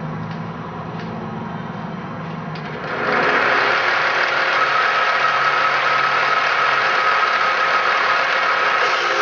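Grinder spinning an .063-gauge stone, running with a steady hum. About three seconds in the stone bites into the welded chainsaw bar rail, and a loud, steady grinding with a high whine takes over as it cuts out the bar groove.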